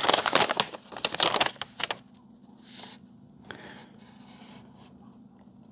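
Paper and packaging being handled: a quick run of crinkling, crackling rustles for about two seconds, then a few softer rustles.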